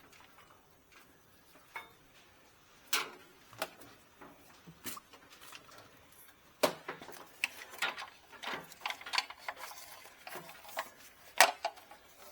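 A small bungee cord being stretched and hooked in place: scattered clicks, taps and rubs of its metal hooks against the truck's plastic and metal parts, a few at first, then a quicker run of them in the second half with two sharper knocks.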